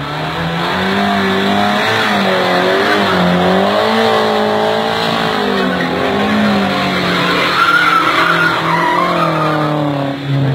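Old Toyota sedan doing donuts: the engine held at high revs, its pitch rising and falling as the throttle is worked, over the rear tyres skidding and squealing on the asphalt. The squeal gets louder about eight seconds in, and the engine drops off briefly near the end.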